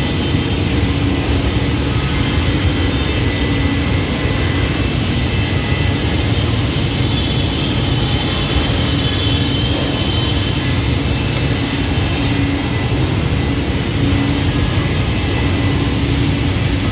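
Automatic CNC scroll saw running steadily: a continuous, loud mechanical drone with a low rumble and a steady hum.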